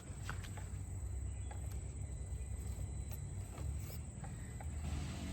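Steady cricket chirping over a low rumble, with scattered light clicks and knocks as a TRX4M RC crawler works its way around obstacles.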